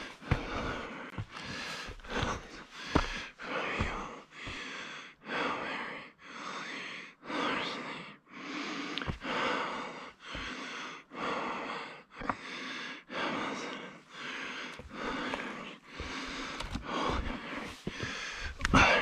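A hiker breathing hard and evenly from climbing a steep, rocky trail: loud noisy breaths in and out, about one a second, with a few short low thumps.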